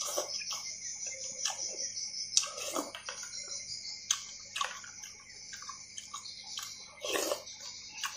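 Eating noodle soup with meatballs: wet slurping of broth and noodles, with a louder slurp about three seconds in and another near the end, and a metal spoon clicking against a plastic bowl. A steady high-pitched chirring runs underneath.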